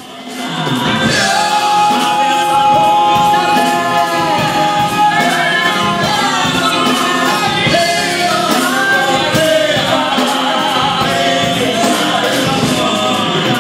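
Male voices singing together in harmony, holding and gliding through long notes in a number from a rock-opera stage musical.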